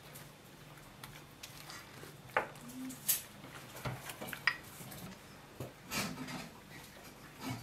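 Scattered light clicks, taps and clinks of dishes and kitchen utensils being handled on a table, over a low steady hum.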